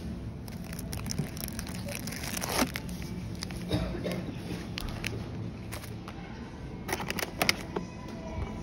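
Plastic snack packaging crinkling and clicking as packs are handled and put into a wire shopping trolley, with a cluster of sharp clicks near the end, over a steady low hum.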